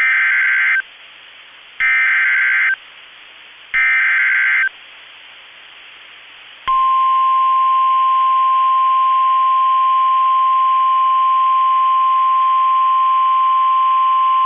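NOAA Weather Radio Emergency Alert System header: three one-second bursts of warbling SAME digital data about two seconds apart, then, about seven seconds in, the long steady warning alarm tone. Together they announce a severe thunderstorm warning.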